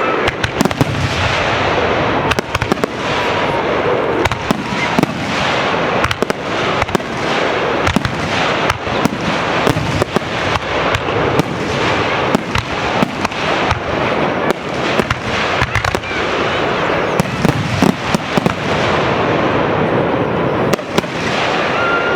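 Aerial fireworks display: many shells bursting in rapid, overlapping succession, sharp bangs over a continuous crackling barrage.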